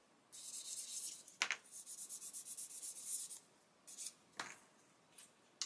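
Flat sanding stick rubbed quickly back and forth over the edge of a thin plastic model-kit part, thinning its trailing edge: a run of short rasping strokes for about three seconds. It stops, and a few light knocks follow as the part and stick are set down on the bench.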